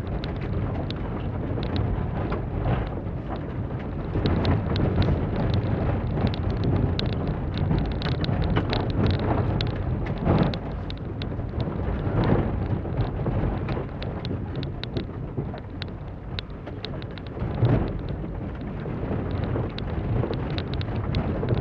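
Cabin sound of a 2006 Holden Barina driven hard on a dirt khanacross course: the engine and tyre rumble run throughout, with a rapid scatter of sharp ticks from gravel striking the underbody and wheel arches.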